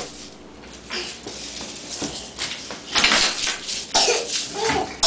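Foam packing peanuts rustling, clicking and squeaking against each other and the wooden floor as a toddler crawls through them, getting busier with a burst of crackling about three seconds in.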